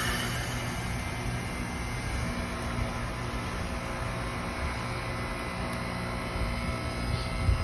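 2002 Arcoaire heat pump running with a steady mechanical hum; a faint higher tone joins about two seconds in.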